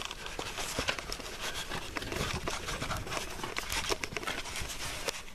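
Irregular rustling and crackling with many small clicks: handling noise from a handheld camera being moved about.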